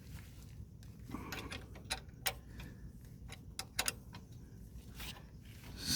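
Light, irregular metal clicks and ticks from a nut, washer and bolt being fitted by hand on a car's gear-shifter linkage bracket.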